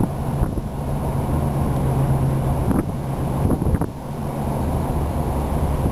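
A car driving slowly: a steady low drone of engine and road noise, with a few light knocks.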